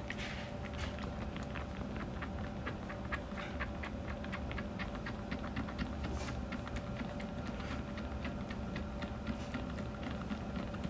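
A tabby kitten suckling milk from a nursing bottle: quick, regular wet sucking clicks, about four a second.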